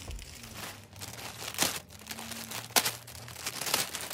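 Plastic shipping bag crinkling and rustling as hands pull it open, with a few sharp crackles.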